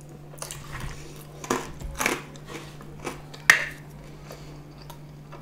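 Close-miked chewing and biting of pizza with wet mouth sounds, then a sharp squirt from a plastic ketchup squeeze bottle about three and a half seconds in.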